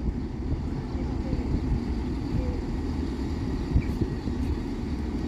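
Diesel multiple unit train running with a steady low rumble, held at the station beside the closed level crossing.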